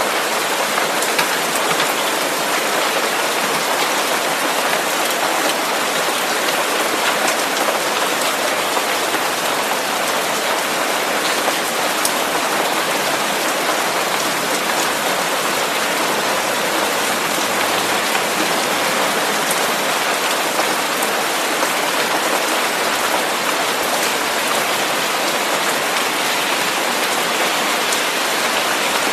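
Steady, unbroken hiss of a white-noise track that sounds like heavy rain, spread evenly into the highs with faint scattered ticks like drops.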